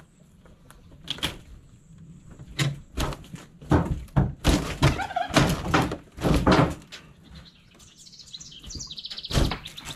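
The smashed camper's torn siding and framing being wrenched by hand: a run of thuds, bangs and crunches, thickest in the middle, fading out near the end.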